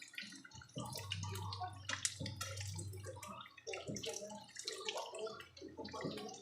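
Saba banana slices in a flour-and-sugar batter frying in oil, sizzling with irregular crackles and pops.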